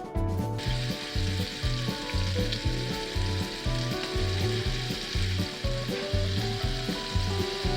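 Bacon sizzling and frying in a hot pan, the sizzle jumping up sharply about half a second in and then holding steady. A steady low beat, about two a second, runs underneath.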